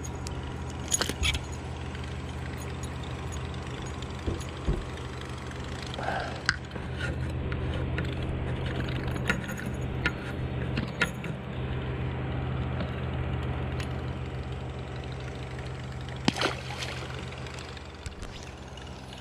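A boat motor runs with a steady low hum, over small metallic clicks and rattles of a lure's hooks as a bass is unhooked by hand. Near the end comes a short splash as the fish goes back into the water.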